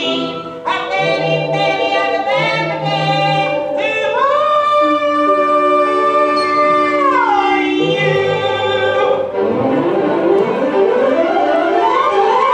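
Music with a sung or voice-like melody over accompaniment: a string of short notes, then a long held high note slid up into and down out of, then fast rising runs of notes near the end.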